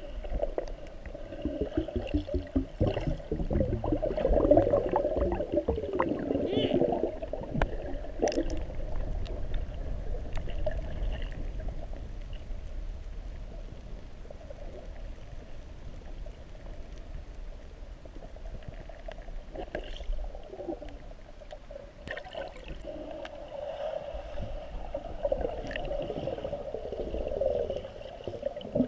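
Water gurgling and bubbling, busiest in the first several seconds and again near the end, with a quieter stretch in the middle.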